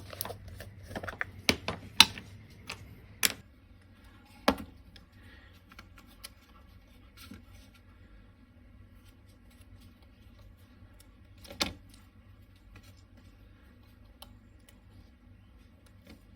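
Small objects and tools handled on a workbench: a quick run of clicks and clatter in the first few seconds, then only a couple of single knocks, over a faint low hum.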